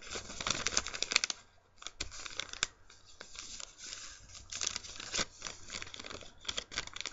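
A sheet of lined notebook paper being folded and creased by hand, crinkling and rustling in irregular bursts with sharp crackles, with a short lull about a second and a half in.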